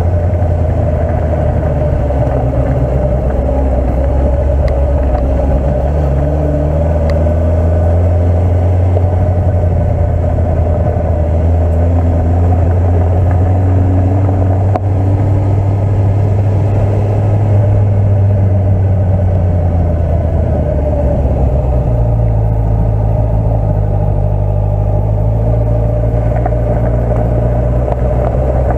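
Honda CB650F's inline-four engine running steadily at low revs as the motorcycle rolls slowly along, with the engine note shifting lower about three quarters of the way through.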